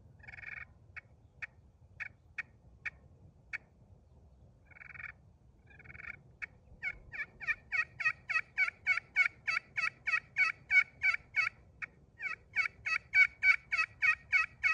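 Turkey pot call with a hard anodized blasted aluminum surface over an acrylic sound board, played with a black locust striker: a few short sharp clucks at first, then long fast runs of two-tone yelps with a brief break near the end.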